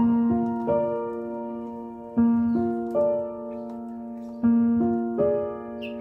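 Background piano music: a gentle repeating phrase of three struck notes, each group fading before the next, about every two seconds.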